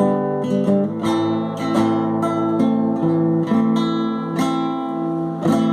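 Acoustic guitar music: plucked and strummed chords with notes ringing on.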